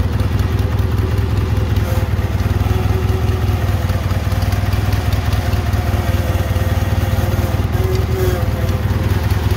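Cub Cadet 782 garden tractor engine running steadily, with an even low pulse and no change in speed.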